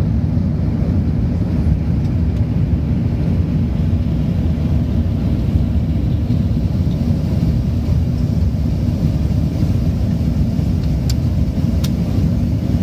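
Steady low cabin noise of an Airbus A380-800 in flight: its four Engine Alliance GP7270 turbofans and the airflow heard from inside at a window seat. Two brief clicks sound near the end.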